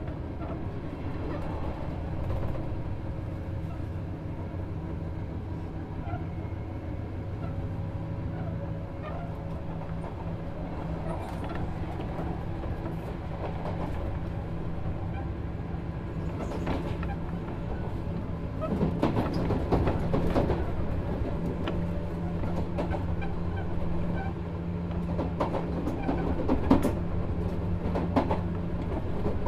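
Sotetsu 7000 series electric train, the Hitachi GTO-VVVF motor car, running along the line: steady motor and gear tones under continuous wheel-on-rail rumble. Louder clatter over rail joints or points comes about two-thirds of the way in and again near the end.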